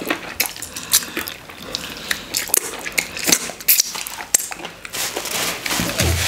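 Wet lip smacks and sucking clicks as fingers are licked clean of okra stew, a quick irregular run of sharp smacks. Near the end a paper tissue rustles as hands are wiped.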